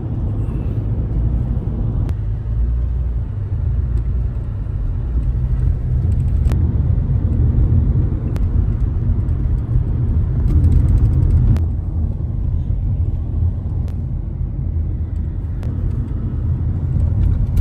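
Inside a moving car: a steady low rumble of engine and tyre noise, with a few faint ticks.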